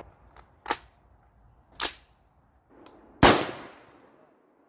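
Three rifle shots from a short-barreled rifle firing reloaded .223 rounds, a little over a second apart. The third shot is the loudest, with a trailing echo.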